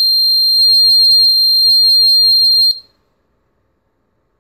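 The wiMOTE amplifier-remote receiver's buzzer sounding one long, steady, high-pitched beep while its programming button is held, which marks the unit's programming mode. The beep stops abruptly a little under three seconds in.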